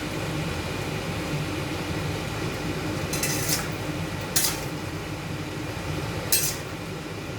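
A utensil stirring curry in a cooking pot, scraping and clinking against the pot: a short scrape about three seconds in and sharp clinks near four and a half and six and a half seconds, over a steady low hum.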